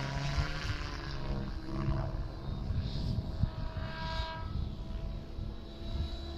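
ALZRC N-Fury T7 RC helicopter in flight, its brushless electric motor and rotor giving a whine that rises and falls in pitch as it manoeuvres, over a low rumble of wind on the microphone.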